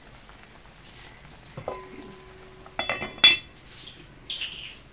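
Enamelled cast-iron lid of a Le Creuset Dutch oven being set onto the pot: a few light clicks, then one sharp clank with a brief metallic ring about three seconds in.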